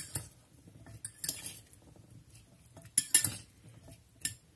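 Metal fork tossing a chopped celery salad in a ceramic bowl: irregular clinks and scrapes of the fork against the bowl, the loudest about three seconds in.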